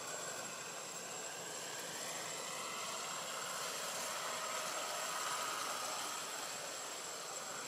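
Steady outdoor background hiss that swells slightly in the middle, with a constant thin high tone running through it.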